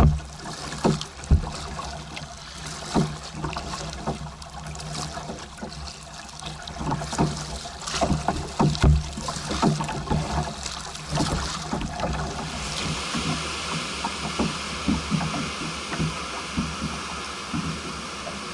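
Kayak paddling on choppy water: paddle-blade splashes and sharp knocks of water and paddle against the plastic hull. About twelve seconds in the knocks thin out and a steady hiss takes over.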